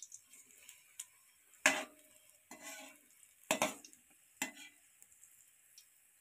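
Perforated metal slotted spoon knocking and scraping against a thick kadai while turning fritters in hot oil, a few strokes with a short metallic ring. The loudest come about a second and a half in and again about three and a half seconds in. A faint sizzle of deep-frying runs underneath.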